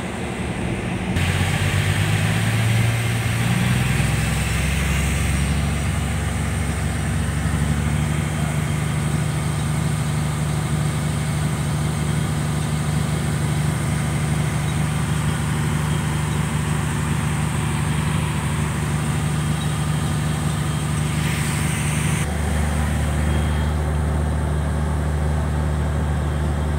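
Boat diesel engine running at low speed: a steady low drone. Its pitch steps up a few seconds in, then holds, and the tone changes again about 22 seconds in.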